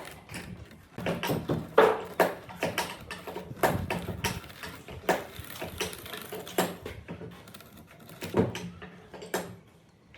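Irregular knocks, taps and clatter of wooden pieces being handled and worked by hand at a workbench, several strikes a second with a louder knock about two seconds in.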